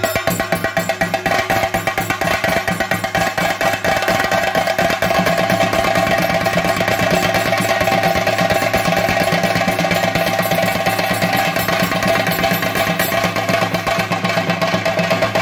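Chenda drums of a theyyam ensemble beaten in a fast, dense, unbroken roll, with a steady held tone sounding over the drumming.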